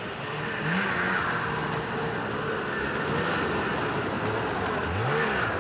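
Snowmobile engine running as it closes in, its pitch rising and falling with the throttle.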